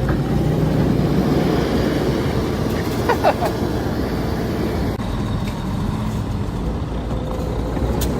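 Heavy truck engine running steadily under load while a stuck truck is pushed through snow, with a brief high squeal about three seconds in.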